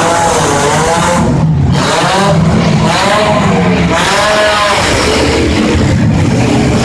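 Several demolition derby cars' engines revving hard, their pitch rising and falling again and again over a loud, dense din.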